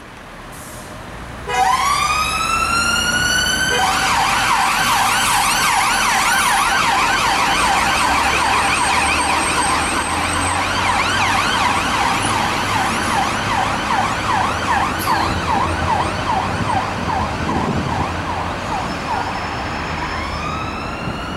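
Dennis Sabre fire engine's siren sounding on a blue-light run. It opens with a long rising wail about a second and a half in, switches to a fast yelp of quick up-and-down sweeps a couple of seconds later, and starts another rising wail near the end.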